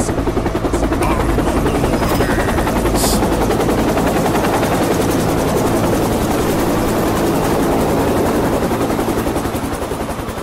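Helicopter sound effect: a steady, rapid chopping of rotor blades that eases off slightly near the end.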